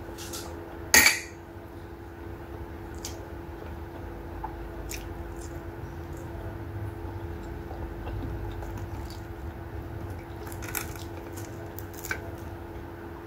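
Eating by hand from a plate: fingers working through rice and fish, with one sharp clink of dishware about a second in and a few soft taps later. A steady faint hum runs underneath.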